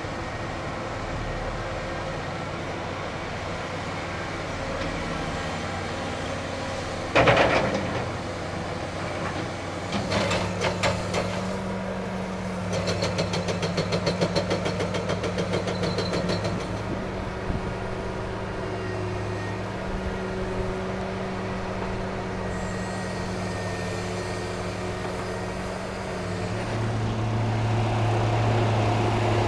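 Heavy construction machinery with diesel engines running steadily. There is a loud bang about seven seconds in, and a stretch of rapid mechanical clattering a few seconds later. An engine grows louder near the end.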